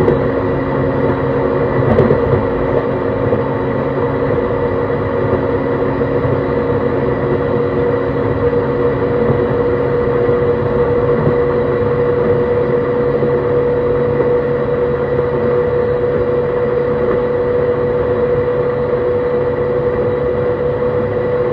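JR East E131 series 600 subseries electric train running at a steady speed: constant rumble of wheels on rail with a steady hum and whine from its Hitachi hybrid SiC inverter and traction motors. A single short knock about two seconds in.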